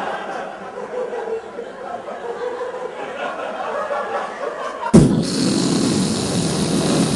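Audience laughing. About five seconds in, a sudden loud rushing blast made with the mouth into the microphone, imitating a jetpack firing up.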